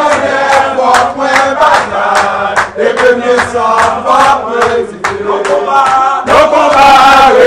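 A group of voices chanting loudly in unison, rally-style.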